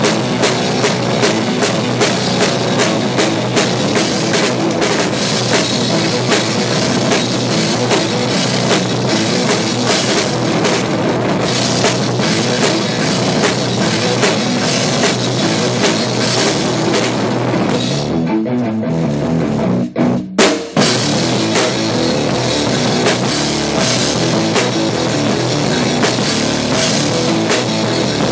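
Rock music with a full drum kit, the bass drum driven by a double pedal. About eighteen seconds in, the cymbals and high end thin out and the music stops short a couple of times before the full band comes back in.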